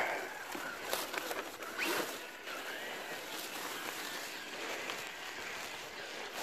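Dry leaf litter and twigs crunching and rustling under a Traxxas TRX-4 RC crawler's tyres and the operator's footsteps, with a few sharp snaps and brief whines of the truck's sensorless brushless motor rising and falling with the throttle.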